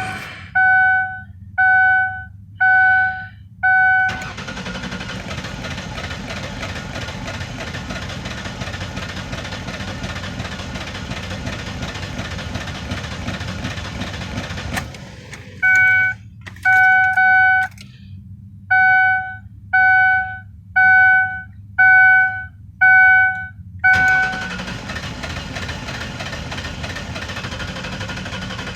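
2004 Ford Taurus warning chime beeping about once a second. Between two runs of beeps, a steady mechanical noise from the car lasts about eleven seconds. The steady noise returns when the chime stops near the end.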